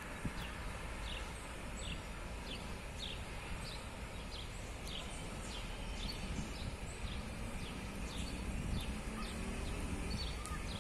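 A bird repeating a short, high, falling chirp about twice a second over a low, steady rumble of outdoor background noise.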